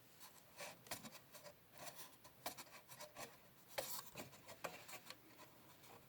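Faint, scattered small clicks and soft rubbing from parts and wires being handled inside a vacuum-tube TV chassis.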